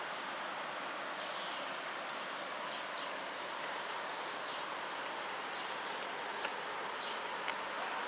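Steady outdoor background hiss with a few faint short high chirps and two light clicks near the end.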